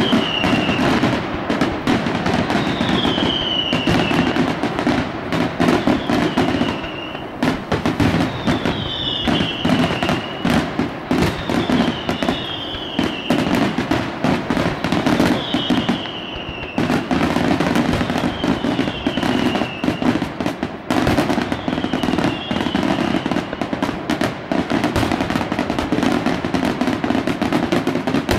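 Daytime aerial fireworks: a dense, unbroken run of sharp bangs from shells bursting in smoke. A short falling whistle sounds every two to three seconds.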